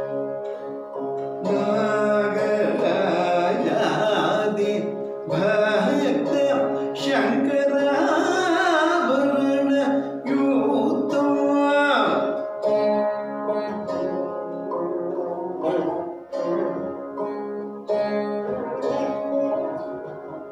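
Saraswati veena playing Carnatic music in raga Shankarabharanam: plucked notes with sliding, bending pitches (gamakas) over a steady drone, busiest and loudest through the first half or so, then quieter.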